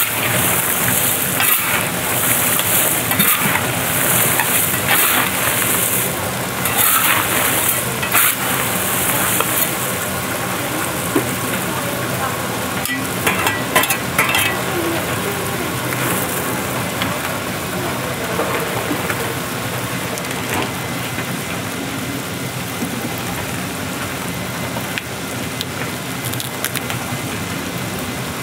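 Chestnuts tumbling with small hot stones in an iron roasting pan as a motor-driven stirring arm churns them: a steady gritty rattling hiss over a faint low hum. It is brighter and more uneven for about the first ten seconds, with a few sharper clicks a little before the middle.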